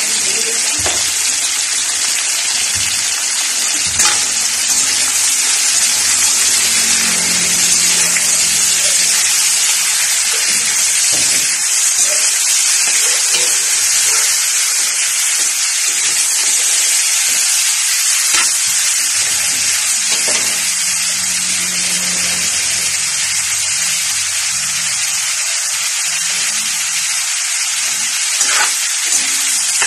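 Chicken pieces sizzling in a hot aluminium wok, a loud steady hiss, with a few knocks and scrapes of a metal spatula stirring them against the pan.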